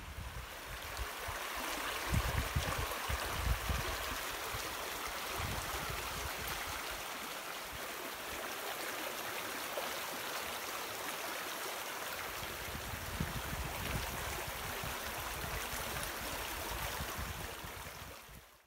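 Shallow stream running over stones, a steady rush of water, with bursts of low rumble at times; it fades out near the end.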